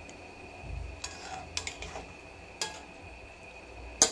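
Metal spatula knocking and scraping against a steel kadai while fish pieces are stirred into mustard gravy: a few light clinks, then a sharp double clank near the end. A faint steady high hum runs underneath.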